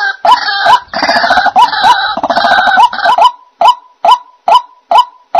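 White-breasted waterhen calling: a harsh, dense croaking chorus over a steady string of short rising notes, about two a second. About three seconds in, the croaking stops and only the repeated notes go on.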